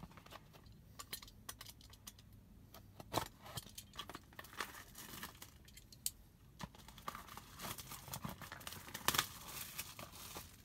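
Packaging of a trading-card blaster box being torn open and handled: irregular tearing, crinkling and small clicks.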